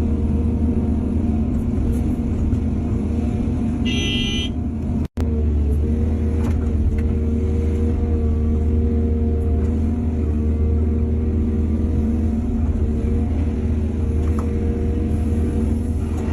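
Diesel engines of heavy earthmoving machinery running steadily with a deep drone. A brief high-pitched tone sounds about four seconds in, the sound cuts out for an instant just after, and a few faint knocks follow.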